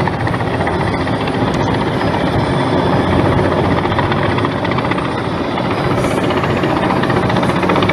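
Helicopter hovering overhead, its four-bladed main rotor beating in a steady, even rhythm over the drone of its engine.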